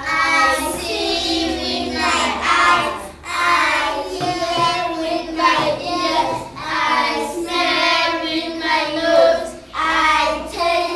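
A small group of young children singing a song together in phrases, with short breaks between lines.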